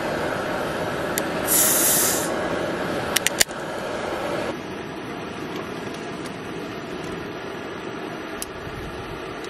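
Aluminium drink can opened by its pull tab: a faint click and a short sharp hiss of escaping gas, followed by three quick clicks, over a steady rushing background.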